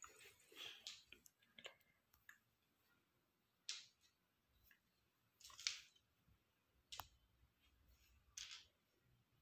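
Small pebbles clicking as they are set down on a polished stone floor and knocked against each other: a cluster of clicks in the first two seconds, then single clicks every second or two.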